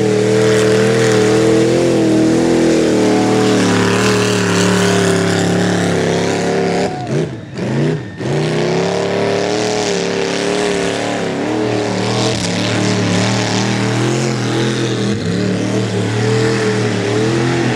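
An off-road vehicle's engine run hard at high revs, its pitch wavering under load. About seven seconds in the revs drop sharply for a moment and then climb back up.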